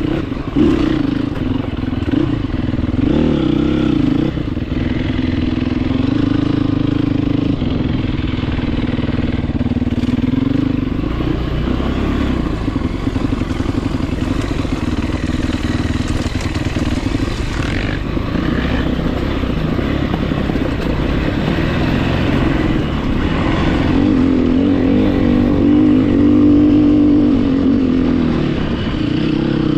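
Dirt bike engine running continuously while being ridden, its pitch rising and falling with the throttle.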